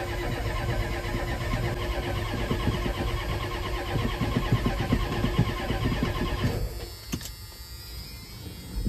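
Starter motor cranking the 1986 Ford F-250's 6.9-litre IDI V8 diesel for about seven seconds, in an even rhythm with the starter's whine over it, then letting go. The engine does not fire on this try.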